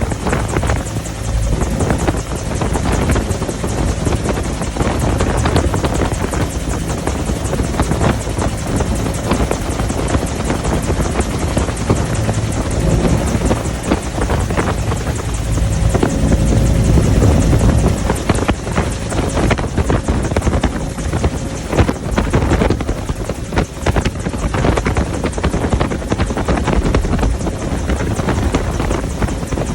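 Helicopter in flight: loud, steady rotor and engine noise with a rapid, continuous beating of the blades.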